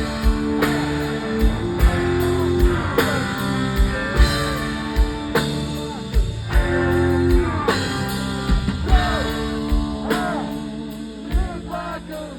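Live rock band playing without lead vocals: electric guitar over a steady drum beat and bass, dropping quieter near the end.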